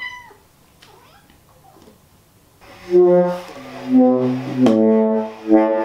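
Tenor saxophone played by a beginner on his first try: a brief high rising squeak at the very start, then after a pause a string of held low notes, stepping unevenly from one pitch to the next.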